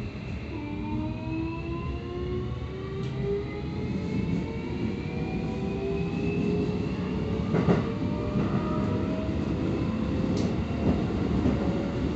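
Keikyu 1000 series train with permanent-magnet synchronous traction motors running, its motor and inverter whine climbing slowly in pitch as the train accelerates, over the rumble of wheels on rail. A couple of short clicks sound in the second half.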